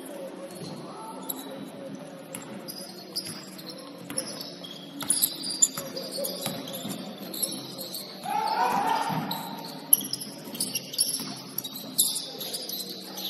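Basketball game play in a gym: sneakers squeaking on the hardwood floor and a basketball bouncing, with scattered knocks. A voice calls out loudly about eight seconds in.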